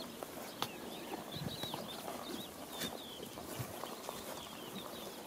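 Small birds chirping over and over, with faint rustling in loose hay and a few light knocks from goats and other livestock feeding on it.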